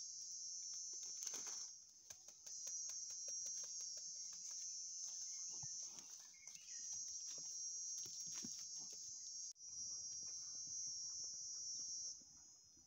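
Steady high-pitched insect chirring, breaking off briefly a few times, over scattered soft clicks and crunches of a calf and sheep chewing banana peels on the grass.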